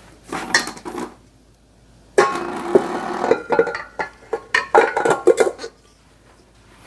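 Clattering and scraping in a stainless steel stand-mixer bowl as ingredients are worked into it, the metal ringing with each knock. A short burst comes right at the start, then a longer busy stretch of knocks and scrapes from about two seconds in.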